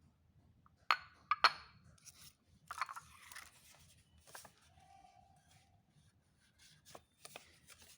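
Borosil glass lunch boxes and their plastic lids being handled: three sharp knocks about a second in, one with a brief glassy ring, then rustling and a few scattered lighter knocks.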